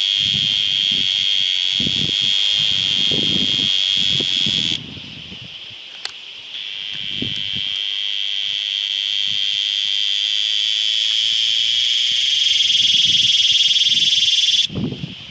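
Cicada singing: a loud, steady, high-pitched buzz from its tymbals. It stops about five seconds in, starts again a second and a half later, swells gradually, and cuts off abruptly near the end.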